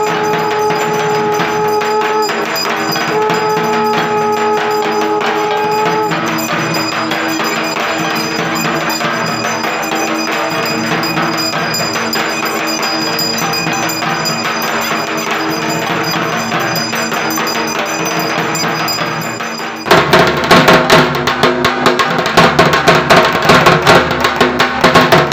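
Music with long held notes and light percussion, then about 20 s in an abrupt change to loud, fast dhak drumming, rapid stick strokes on a large Bengali barrel drum.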